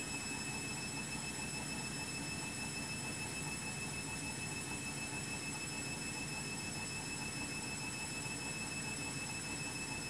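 Front-loading washing machine in its final spin, the drum turning at a steady speed with a low, even motor hum and a thin, steady high whine over it.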